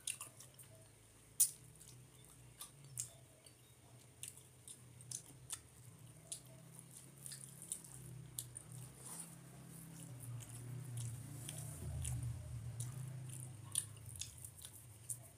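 Eating rice by hand from a metal plate: fingers squish and scrape the rice around the plate with many small sharp clicks, along with chewing, the loudest click about a second and a half in.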